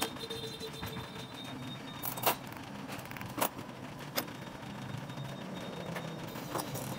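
Jeweler's bench work on gold earrings set in shellac: a few separate sharp clicks and taps, three in the middle about a second apart and another near the end, over a steady low hum.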